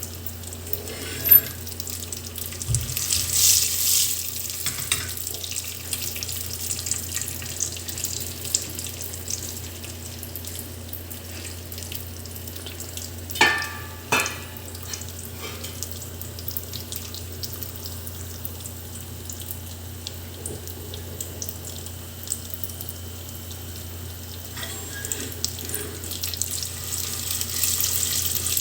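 Maize kernels sizzling steadily in hot oil in an open pressure cooker while being stirred. A few sharp knocks against the pot come about a second in and twice a little past the middle.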